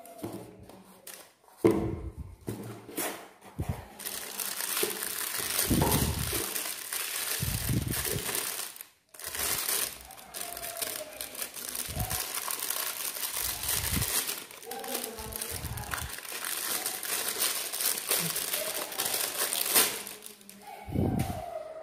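Thin clear plastic bag crinkling as it is worked open and pulled off a wristwatch, with a few soft bumps of handling.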